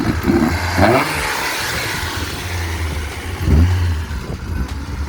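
Car engine running and revving up briefly twice, about a second in and again near the end.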